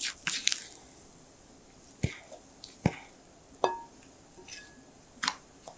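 A few light taps and clinks of the mixing bowl and utensils against the cake pan as thick chocolate batter is poured slowly into it. One tap a little past the middle rings briefly.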